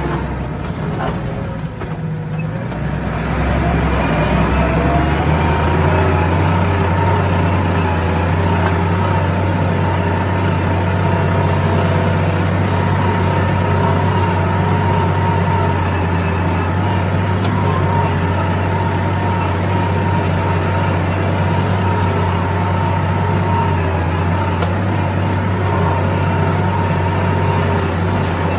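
Tractor engine running steadily under load while towing a disc harrow through tilled soil. The sound dips briefly about two seconds in, then picks up again and holds steady.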